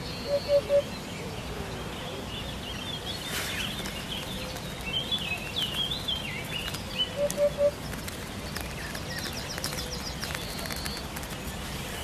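Eurasian hoopoe giving its low three-note 'oop-oop-oop' call twice, once about a second in and again past halfway. Other birds chirp and warble higher up in the background, with a quick trill near the end.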